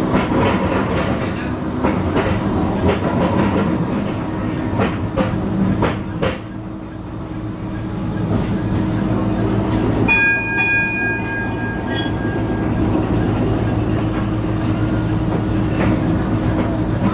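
Blackpool Flexity 2 tram running along the tramway, heard from inside: a steady low motor hum with clicks and clatter from the wheels over the track. About ten seconds in, a high ringing tone sounds for about two seconds.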